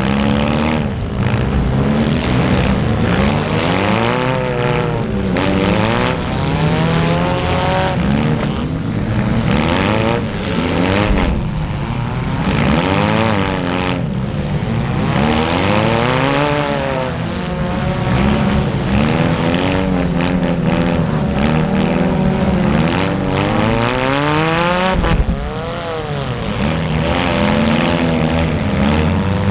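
Several small-car engines revving hard and dropping back over and over, their pitches rising and falling against each other, with occasional sharp bangs of cars crashing into one another in a demolition derby.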